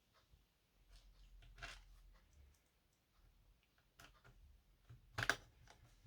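Faint clicks and light scraping from small hard laptop parts being handled, with one sharper click about five seconds in.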